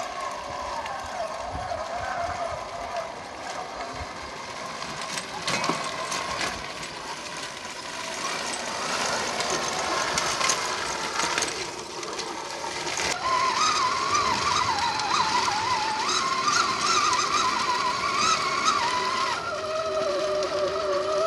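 Electric motor and gearbox of a Traxxas Summit RC truck on Mattracks whining, the pitch wavering up and down as the throttle is worked. Scattered clicks and knocks come from the tracks and chassis on rock.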